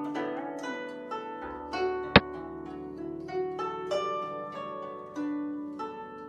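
Background music of plucked strings, with notes struck one after another and left to ring. About two seconds in, a single sharp click sounds: the digital board's sound effect as a xiangqi piece is moved.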